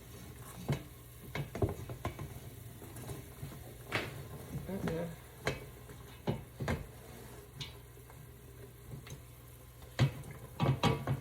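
Chopped potatoes, celery and onion being tipped into a pot of broth and stirred in with a spoon: scattered knocks and scrapes of the spoon against the pot, over a faint steady hum.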